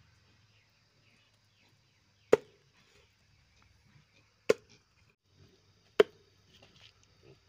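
Three chops of a heavy knife cutting through an eel and striking a wooden chopping block: sharp knocks with a short dull ring, spaced about two seconds and then a second and a half apart.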